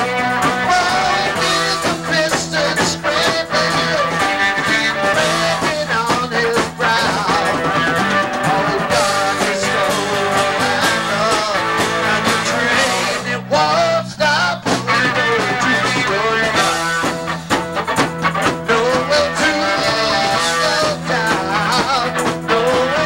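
Rock band playing live and loud: electric guitar and bass over a steady drum beat.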